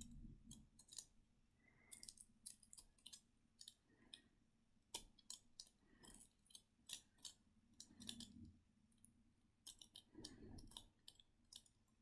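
Faint, irregular clicks and crackles of the dry, papery skin of a dried avocado seed being picked and peeled away with a small metal tool.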